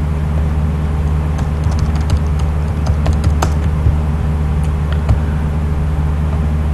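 Light computer keyboard and mouse clicks over a steady low hum: a run of key clicks from about a second in, then a couple of single clicks later.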